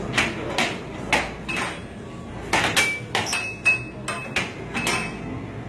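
Arcade game being played: a run of sharp, hard knocks and clacks at irregular spacing, about two a second, some with a brief high ringing ping.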